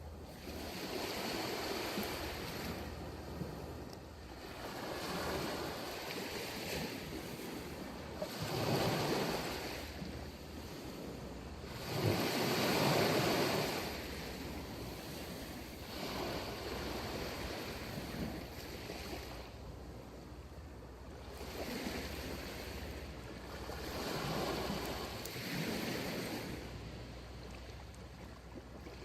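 Sea waves breaking and washing up a sandy beach, rising and falling in a slow rhythm every few seconds. The biggest surges come about a third of the way in and again near the middle.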